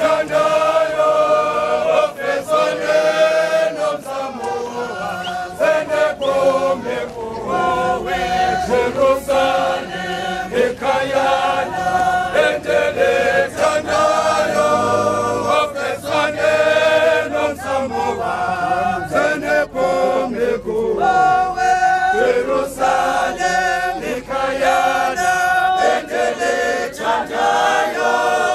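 A marching group of church men and women singing a hymn together in loud unison, without instruments.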